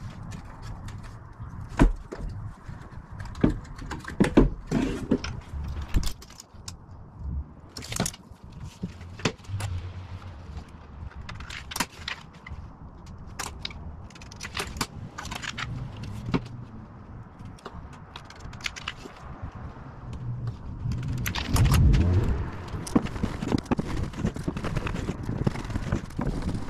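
Scattered clicks, knocks and rattles of metal parts and tools being handled. A louder burst of clatter comes about 22 seconds in.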